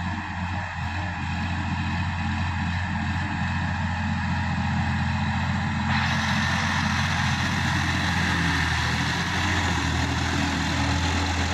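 Sonalika DI-50 RX tractor's diesel engine running steadily under load while its rear-mounted rotary tiller churns dry soil.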